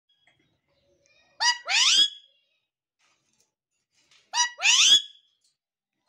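Alexandrine parakeet calling twice, about three seconds apart; each call is a short squawk followed at once by a longer, louder one that bends up and down in pitch.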